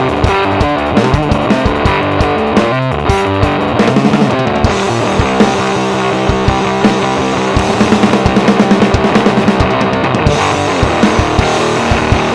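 Fender Precision Bass played through a Fuzzrocious Heliotropic fuzz pedal, a heavy fuzzed bass riff, with a drum kit playing along. There are quick runs of drum hits about four seconds in and again around eight to nine seconds.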